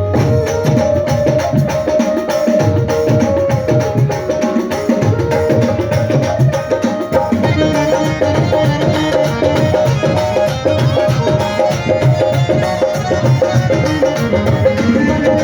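Hand percussion played in a quick, continuous rhythm, with deep low strokes and a steady pitched tone held underneath.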